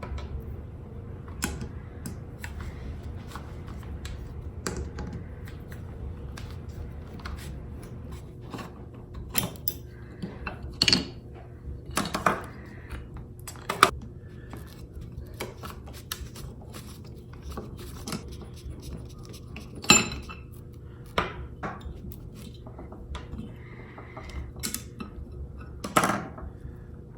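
Metal parts of a Stanley No. 3 hand plane clicking and clinking as they are handled and taken apart, in scattered knocks with a few louder ones, over a steady low hum.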